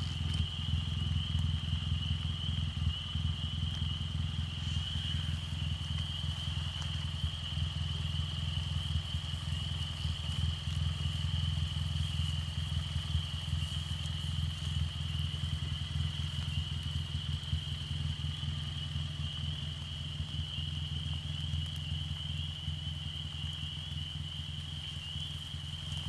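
A steady low, engine-like hum, with a thin, steady high-pitched drone above it.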